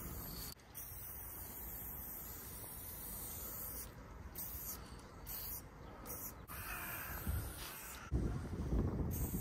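Aerosol spray-paint can hissing as it is sprayed on a concrete wall, in long strokes broken by short pauses where the nozzle is released.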